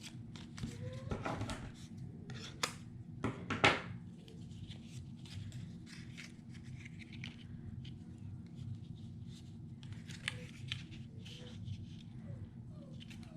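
Paper-craft handwork: paper and adhesive foam being handled, with many small clicks, snips and rustles, and a few louder snaps in the first four seconds.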